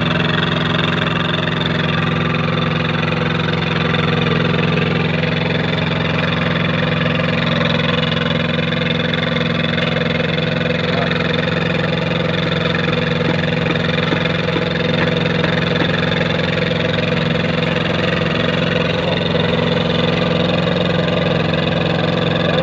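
Engine of a concrete kerbstone-making machine running steadily at an even speed.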